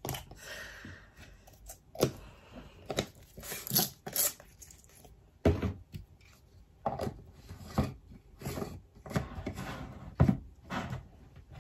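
A plastic scoop scraping and tapping in a tub of energy-drink powder, then a plastic shaker cup and its lid being handled: a string of irregular clicks, knocks and short scrapes.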